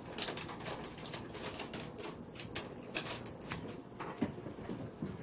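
Small neodymium-iron-boron magnets clicking and snapping against one another in quick, irregular clicks as a clump of them is handled.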